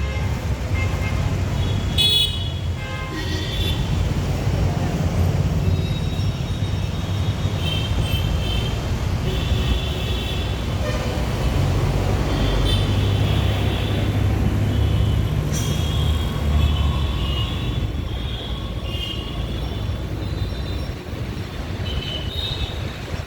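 Road traffic with a steady low rumble of engines and tyres, and vehicle horns tooting again and again.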